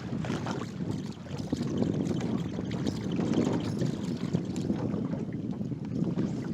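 Wind buffeting the microphone in an uneven low rumble, with choppy water lapping and slapping against the boat's hull.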